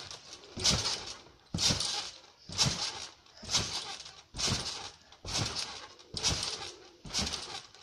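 Trampoline being bounced on in a steady rhythm, about once a second: each landing gives a thud from the mat and a creak from the springs. There are about eight bounces.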